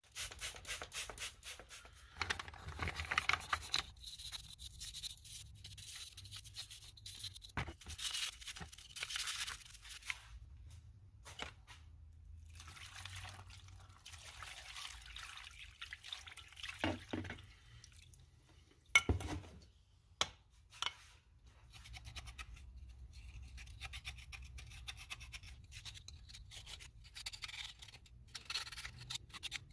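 Brush scrubbing the parts of an old chalk line reel during cleaning, in on-and-off strokes, with scattered clicks and knocks of the parts being handled. A sharp knock about 19 seconds in is the loudest sound.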